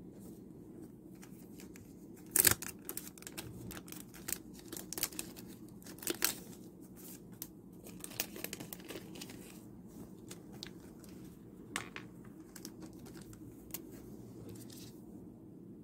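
Photocards and clear plastic card sleeves being handled on a desk: irregular crinkling and rustling with sharp little clicks, the loudest about two and a half seconds in and another about six seconds in, growing sparser in the second half.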